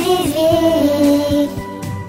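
Pop-style birthday song: a singer holds a long note that steps down in pitch and ends about a second and a half in, leaving the backing music playing on.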